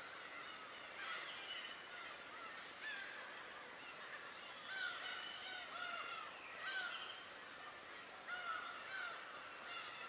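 A flock of gulls calling: many short arched calls overlapping one another, several birds at once, throughout.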